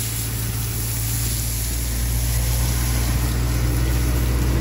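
Small electric pressure washer running steadily, its motor humming under the hiss of a fine water spray being played over a horse's wet coat.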